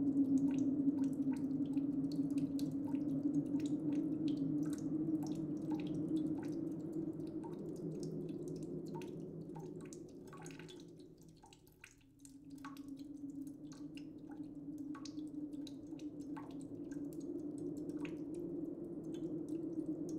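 Water dripping in small, irregular drops over a steady low hum. The hum fades almost away about halfway through, then swells back.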